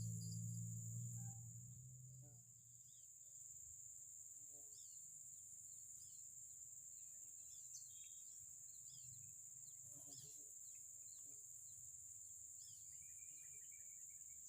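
Faint outdoor ambience: a steady high-pitched insect drone with scattered short bird chirps. Background music fades out over the first two seconds.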